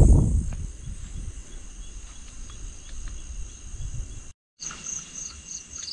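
Night insects chirping in a quick, high pulsing rhythm of about five pulses a second. A low rumble at the very start is the loudest moment, and the sound drops out for a moment a little after four seconds in.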